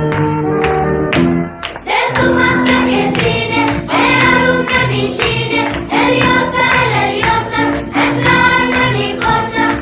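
Background music: an instrumental passage for about the first two seconds, then a song with a group of voices singing over a steady beat.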